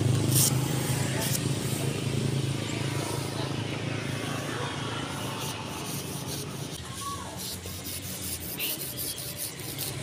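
Hand blade scraping and cutting through thick truck-tire rubber, with a vehicle engine running low that fades over the first couple of seconds. A run of light clicks comes near the end.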